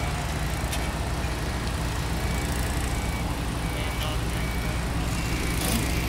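Heavy diesel engine running steadily at an even, low pitch.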